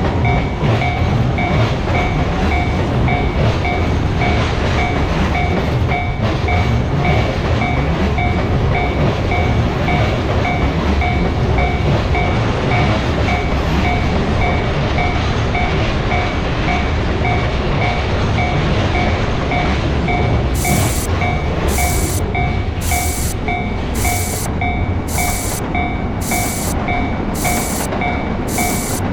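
A Japanese railroad-crossing warning bell rings with a rapid, even clang over the steady rumble of a passing train. About two-thirds of the way in, a short hissing tick joins in about once a second.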